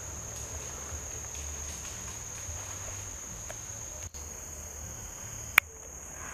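Steady high-pitched chirring of insects in tropical bush. A single sharp click or snap cuts through about five and a half seconds in.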